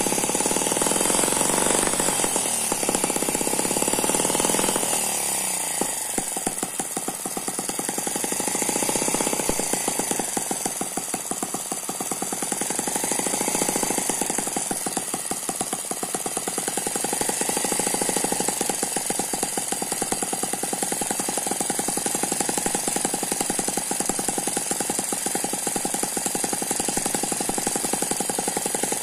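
Eachine ET9 miniature single-cylinder four-stroke gasoline engine running, a rapid, even stream of firing pulses. About five seconds in its speed drops, then slowly rises and eases again as its carburetor is adjusted by hand.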